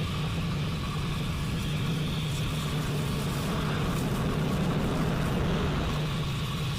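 Isar Aerospace Spectrum rocket's first-stage engines firing in ascent: a steady low rumble with a hiss over it.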